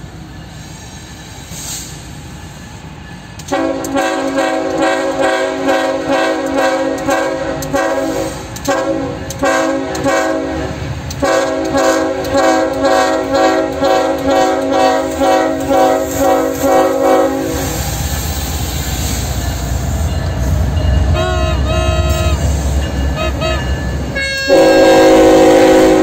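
Horn of a Kansas City Southern de México GE ES44AC freight locomotive played as a horn show: a chord sounded in rhythmic pulses, starting a few seconds in and lasting about fourteen seconds. Then the locomotives' diesel engines rumble past with a few brief wheel squeals, and a last loud horn blast sounds near the end.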